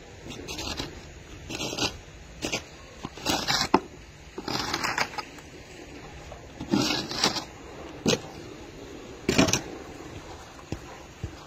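Irregular scraping and crunching strokes in packed snow, about ten in all, each well under a second and spread unevenly.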